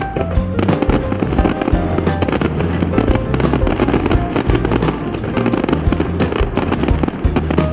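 Fireworks bursting and crackling in quick, irregular succession over loud music.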